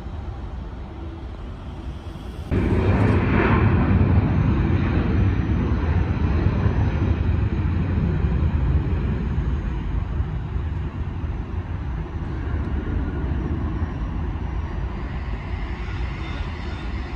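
Jet airliner engines at takeoff power: a steady rumble from a distant departing jet, then a sudden step to much louder engine noise about two and a half seconds in as a British Airways twin-jet accelerates down the runway, easing off slowly over the last several seconds.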